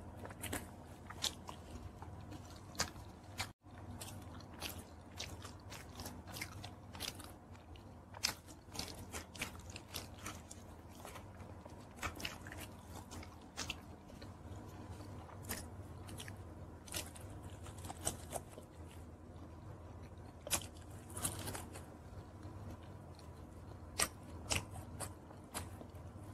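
Close-up biting and chewing of crispy fried chicken, with irregular sharp crunches over a faint steady hum.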